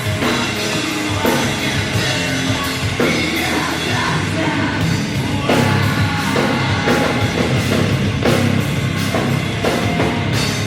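Loud rock band playing heavy, metal-leaning rock with a pounding drum kit, distorted guitars and a singer.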